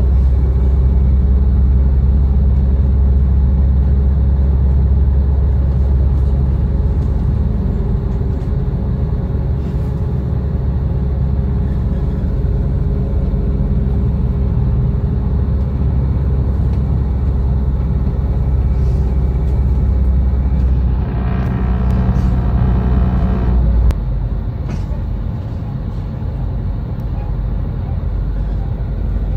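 A moving regional passenger train heard from inside the carriage: a loud, steady low drone with rail running noise. Near the end a higher whine joins in for a few seconds, then it stops and the low drone drops, leaving the ride a little quieter.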